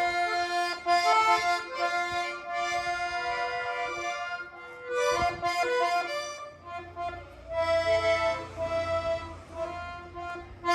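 Accordion played live: a melody of held notes that change every second or so over a sustained lower note.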